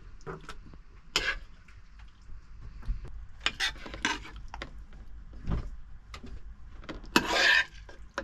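A metal spoon and fork clinking and scraping in a non-stick frying pan and on a plate as pasta is served out, in scattered short knocks, with one louder, longer scrape of about half a second near the end.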